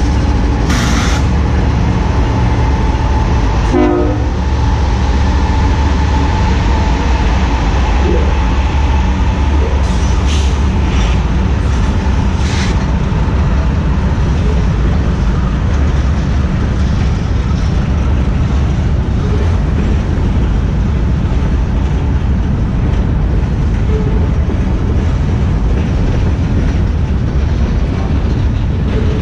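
Diesel freight train passing, led by a GE ES44AC locomotive: the locomotives' engines run as they go by, then a long string of gondola cars rolls past with a loud, steady rumble of steel wheels on the rails. A short run of knocks comes about four seconds in, and a few brief clanks follow later.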